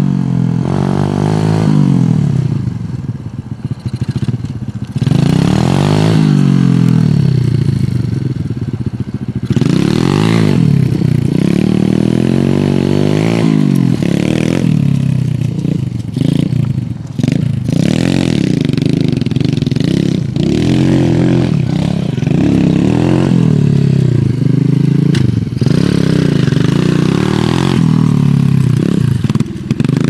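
107cc Honda-clone minibike's single-cylinder four-stroke engine running loud as it is ridden hard, its pitch climbing and dropping back again and again as the rider throttles up and shifts, with a quieter lull a few seconds in.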